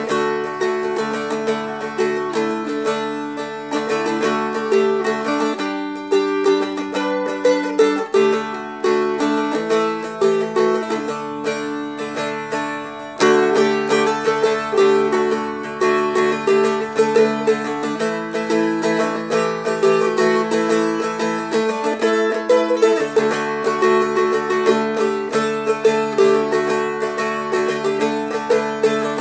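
Seagull Merlin, a four-string fretted dulcimer-style instrument, flatpicked: a melody over ringing drone strings, with the chord shifting every few seconds.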